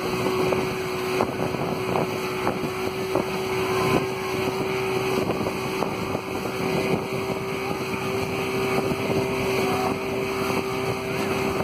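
Pontoon boat's motor running steadily under way, a constant hum, with wind noise on the microphone and scattered light knocks.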